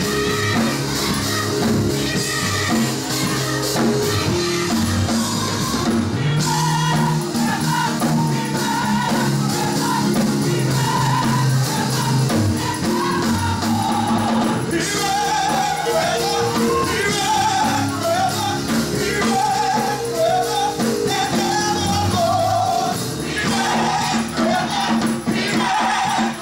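Gospel mass choir singing loudly, a wavering lead line above the voices and long held low notes underneath.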